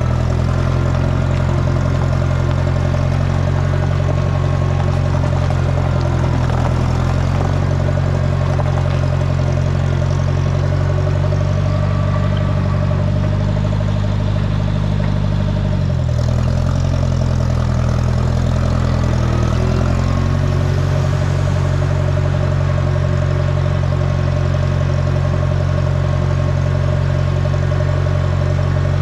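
Allis-Chalmers Model D road grader's engine running steadily as the grader is driven. The engine speed shifts a few times and drops sharply just past halfway, then comes back up a few seconds later.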